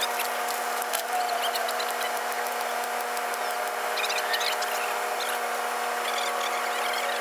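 Steady drone of running machinery holding several fixed tones, with short high squeaks and light clicks scattered over it.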